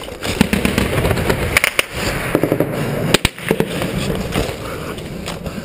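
Scattered gunshots in a firefight, sharp cracks at irregular intervals, one of the loudest about three seconds in. Underneath, continuous rustling and scraping of gear and rock as the soldier scrambles over the boulders.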